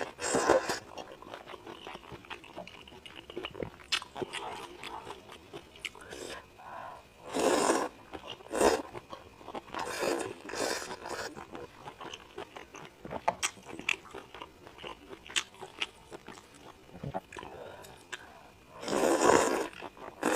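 Close-miked eating: chewing and biting with small crunches and wet clicks of the mouth, broken by a few louder sounds of about a second each, the loudest near the end.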